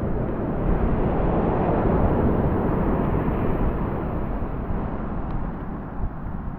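Ocean surf breaking and washing up the beach: a steady rushing wash that swells over the first few seconds and eases toward the end.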